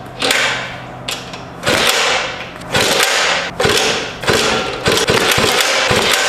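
A freshly rebuilt 1980 Puch Maxi moped's two-stroke engine being kick-started on the pedal for its first start. It turns over in about six separate bursts, one for each kick.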